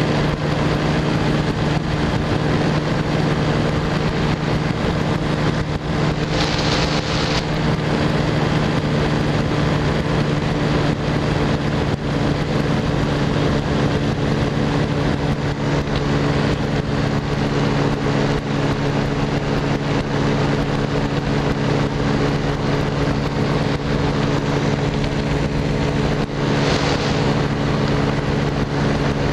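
Small aircraft's engine droning steadily in cruise, heard from on board with wind rushing over the microphone. Two brief hisses of extra wind come about six seconds in and near the end.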